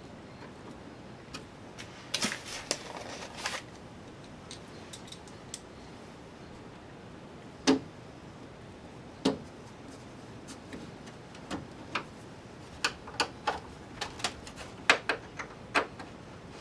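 Scattered sharp clicks and light knocks of screws and a screwdriver against a TV's plastic back panels as the screws are put in. There is a short scraping cluster a couple of seconds in and a quick run of clicks near the end.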